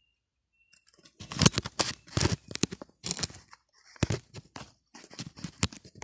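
Bamboo being split and shaved into strips with a knife: a quick run of sharp cracks and scrapes starting about a second in, with a short lull before more.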